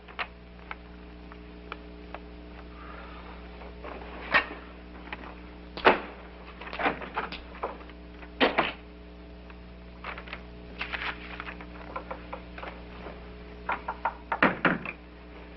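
Scattered knocks and small rustling clicks in a quiet room, a few of them louder and sharp, over the steady low hum of an old television soundtrack.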